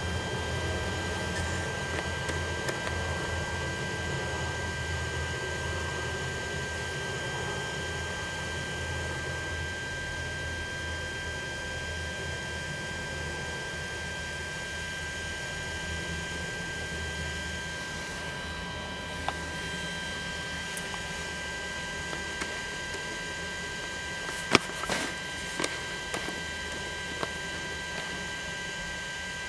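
Steady electrical hum with several constant high-pitched whining tones, and a low rumble that fades away over the first half. A few sharp clicks come near the end.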